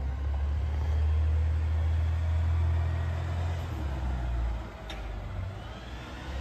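Engine of an approaching garbage truck running: a steady low rumble that eases off about three-quarters of the way through, with one short sharp click just after.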